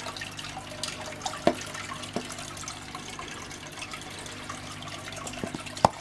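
Steady trickle of a marine aquarium's circulating water, with a low hum under it. A few light clicks, then a quick run of plastic knocks near the end as a plastic cup is handled against the tank.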